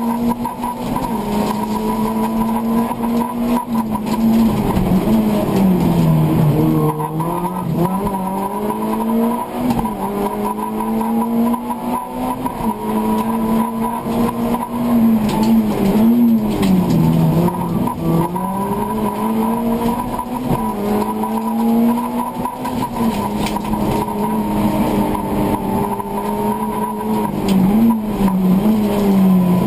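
Competition car's engine heard from inside the cabin, held at high revs under hard driving, its pitch dipping and climbing back several times as the driver lifts and accelerates again, most deeply about six and seventeen seconds in.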